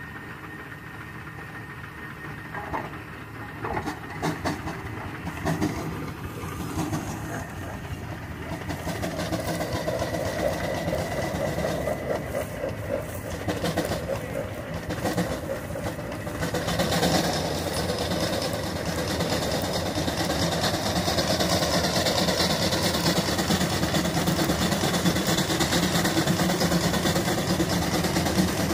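Steam traction engine pulling a plow under load, its working sound growing louder from about a third of the way in. A steady hiss joins about halfway through.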